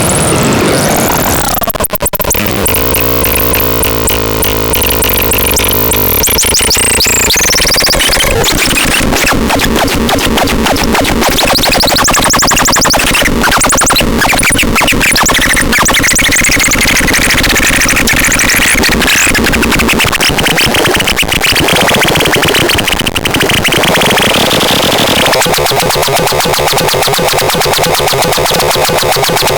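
Harsh electronic noise synthesizer sounds: loud buzzing tones with swooping pitch sweeps in the first several seconds, then a dense, rapidly pulsing, gritty texture whose low end drops away about 25 seconds in.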